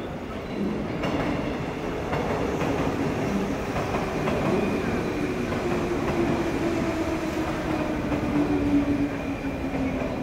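A Yamatoji Line electric train running slowly through the station, with a rumble and a hum that slowly falls in pitch.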